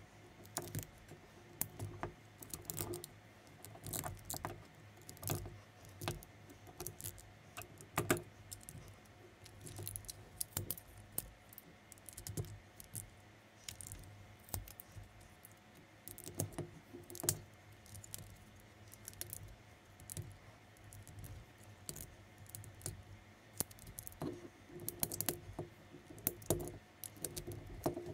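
Plastic LEGO-compatible bricks clicking and rattling in irregular small taps as pieces are picked up and pressed together during assembly.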